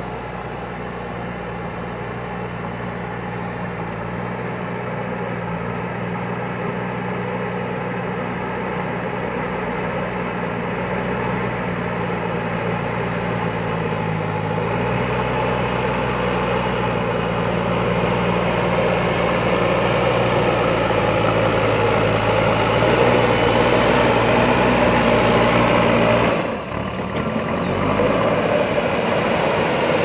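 JCB backhoe loader's diesel engine running as the front loader bucket pushes soil, growing steadily louder. The engine note shifts about halfway through, and the sound dips briefly about three-quarters through.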